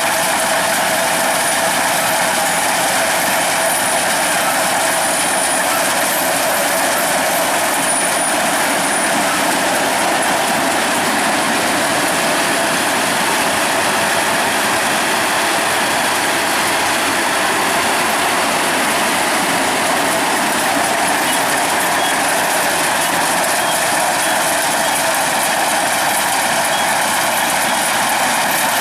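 Kubota DCX 100 rice combine harvester travelling, its engine and machinery running with a steady, unbroken mechanical noise.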